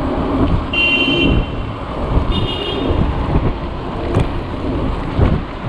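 Street traffic and road noise with a steady low rumble, and two brief high-pitched squeals, one about a second in and one about two and a half seconds in.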